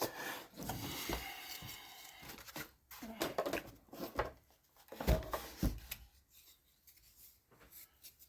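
Wooden model-airplane parts handled on a workbench: scraping and rustling at first, then several light knocks and clicks, then quieter handling.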